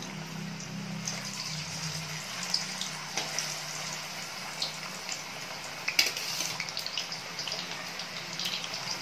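Parboiled potato strips deep-frying in hot oil in a kadai: a steady bubbling sizzle with scattered pops and crackles, one sharp crackle about six seconds in.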